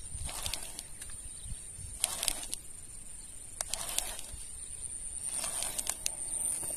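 Insects trilling steadily at a high pitch, with about four soft swishing noises spaced a second and a half to two seconds apart.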